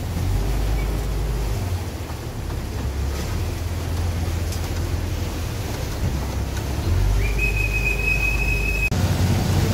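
Chao Phraya passenger boat's engine rumbling low while the boat comes alongside a pier; about seven seconds in, a deckhand's whistle sounds one steady high note for nearly two seconds, a signal to the pilot during docking.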